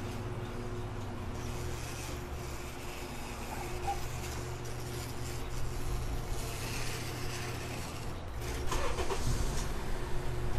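Car engine running with a steady low hum, with swells of rushing noise and a little louder activity near the end.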